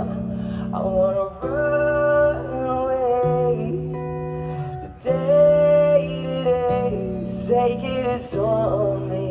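Live concert music: guitar chords sustained under a sung melody of long, bending held notes.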